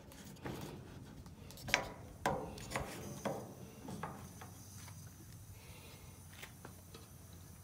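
A handful of scattered knocks and clicks, handling noise at a stainless-steel gas grill, mostly in the first half, then only faint background.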